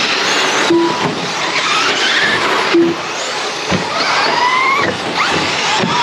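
Electric RC trucks running on the track, their brushless motors whining up and down in pitch as they accelerate and brake, over a steady rush of tyre and track noise. A short low beep sounds twice, about two seconds apart.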